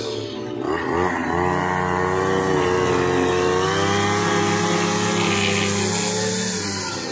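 Zomax ZNG 4303 brush cutter's two-stroke engine running at high revs. It dips briefly near the start, then picks back up and holds steady.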